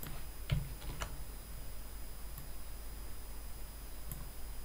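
Clicks of a computer mouse and keyboard: a few close together in the first second and one more near the end, over a steady low hum and hiss.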